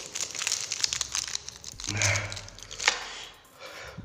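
A foil snack wrapper crinkling and tearing as it is unwrapped by hand, in bursts for about three seconds, then dying down.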